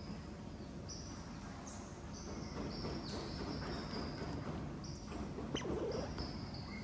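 Short, high-pitched animal chirps repeating irregularly over a steady low background noise, with a thin whistle-like tone near the end.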